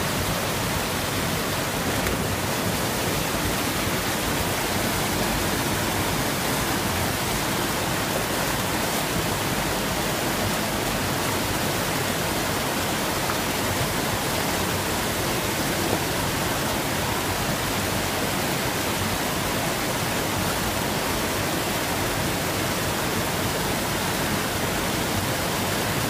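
Creek water pouring over a low concrete weir and churning in the pool below: a steady, unbroken rush.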